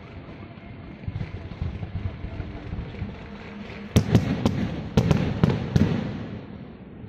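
Fireworks going off: scattered crackling at first, then about seven sharp bangs in quick succession in the second half, each with a short rumbling echo.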